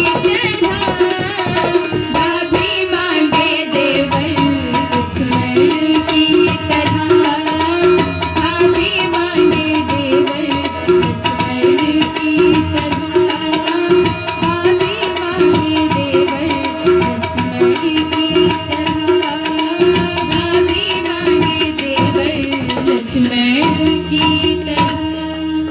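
A woman singing a devotional Ramayan song, accompanied by a hand-played dholak and sustained harmonium-like tones.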